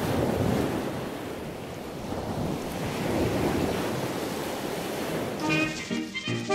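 A rushing noise that swells and ebbs, then music comes in about five and a half seconds in.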